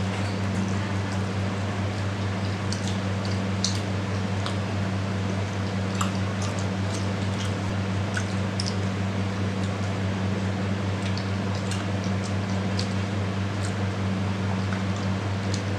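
Wet chewing and mouth clicks of someone eating rice and egg curry with the hands, scattered small sharp smacks, over a steady low hum.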